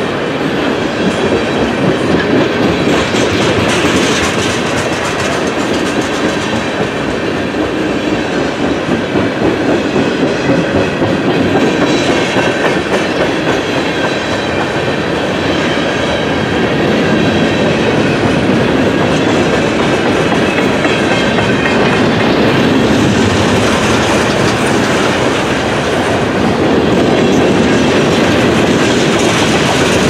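Freight cars of a long, heavy manifest train (tank cars, covered hoppers and boxcars) rolling past close by. The wheels keep up a steady rumble with a running clickety-clack.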